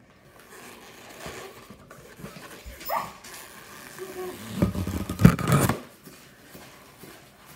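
Long latex modelling balloons squeaking and rubbing as they are handled and twisted, with a hand pump pushing air into a long balloon. A short rising squeak comes about three seconds in, and the loudest part is a rush of about a second around the middle.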